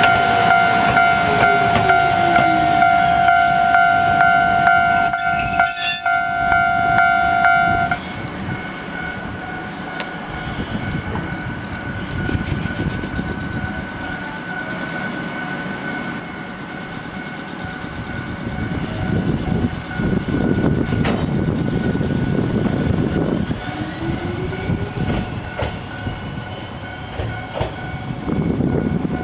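Railway level-crossing warning bell ringing steadily over the sound of an electric train running past; the bell cuts off about a third of the way in. The train's rumble on the rails carries on, with a short rising motor whine, and grows louder in the last third as a train approaches.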